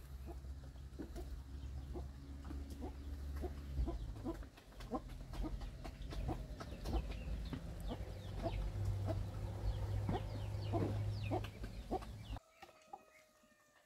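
A flock of Muscovy ducks feeding at a trough: many quick pecking and dabbling clicks of their bills mixed with short soft calls, over a low rumble that stops near the end, when one brief pitched call is heard.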